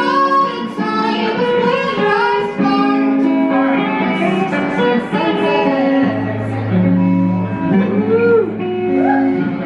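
Guitar-led music playing, with strummed guitar chords and a low bass note coming in about six seconds in.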